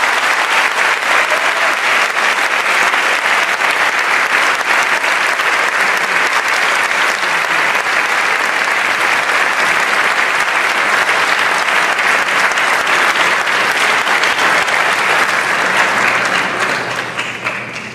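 Theatre audience applauding steadily between scenes of a ballet, dying away near the end.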